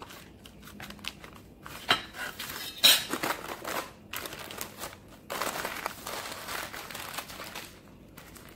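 Baking paper rustling and crinkling as it is rolled tightly around a sponge roll cake and pressed down by hand. There are sharp crackles about two and three seconds in, and a longer stretch of rustling later on.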